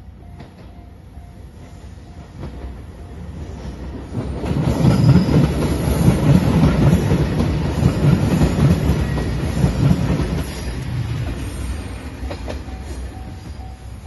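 JR Shikoku 2700-series diesel limited express train approaching and passing close by at speed; the sound builds over the first few seconds, is loudest for about six seconds, then fades. A level-crossing bell dings steadily at the start and again near the end.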